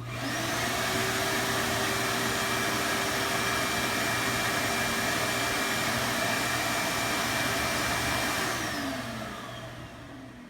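Vacuum cleaner motor switched on, spinning up to a steady whine, running for about eight seconds, then switched off and winding down with a falling pitch near the end.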